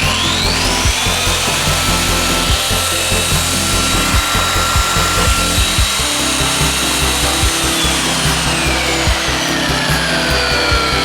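Parkside PWBS 180 B2 wall and floor sander running, its motor speed rising just after the start, holding steady, then falling again about three-quarters of the way through.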